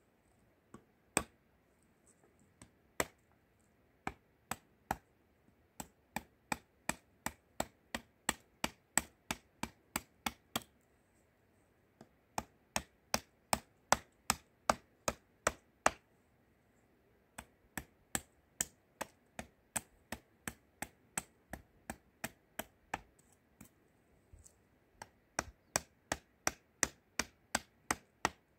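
A small hammer striking again and again, sharp knocks at about two a second in runs of several seconds with short pauses between. The blows drive a hatchet into a wooden spoon blank on a wooden chopping block.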